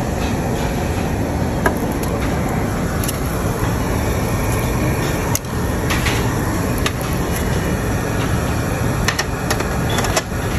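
Steady low rumbling room noise, with several sharp clicks of metal tongs against the grill and the meat tray as beef slices are laid down.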